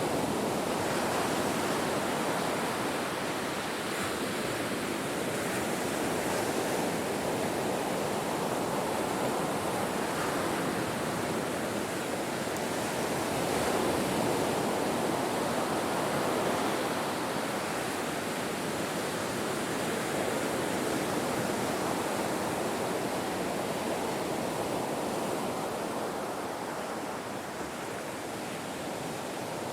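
Ocean waves breaking on a shore: a continuous wash of surf that swells and eases gently, a little fuller around the middle and softening near the end.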